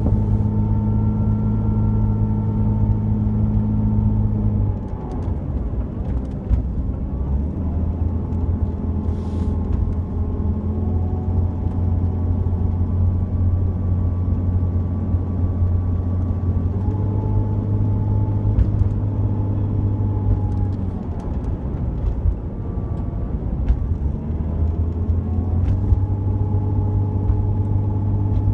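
Jeep Cherokee XJ engine droning steadily while the vehicle climbs a winding mountain road, heard from inside the cabin with low road rumble. The engine note steps down and back up in pitch several times as the engine speed changes.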